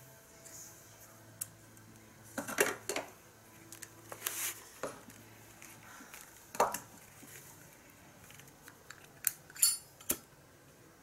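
Irregular clinks and clatters of small hard objects being handled and set down on a work surface: a few sharp knocks spread out, with a short cluster near the end.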